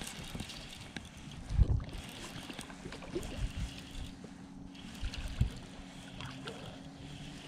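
Fishing boat on the water: a steady low hum from about two seconds in to near the end, with wind on the microphone and a few low thumps, the loudest about a second and a half in.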